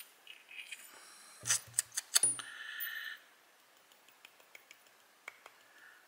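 Small metal pins and springs of a dimple lock cylinder clinking and dropping as it is taken apart. A cluster of sharp clicks and light knocks comes about a second and a half to two seconds in, followed by faint scattered ticks. The pins are spilling out of the cylinder uncontrolled.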